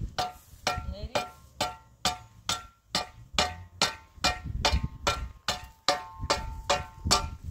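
Rhythmic metallic clanking, a little over two strikes a second. Each strike rings briefly with a bell-like tone.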